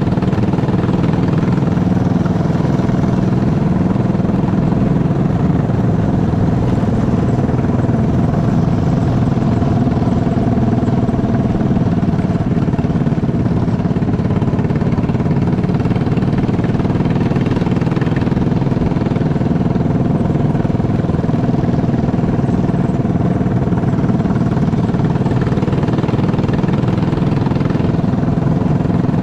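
Flat kart's small engine running steadily under the driver, its pitch holding nearly level with no big revs or lifts.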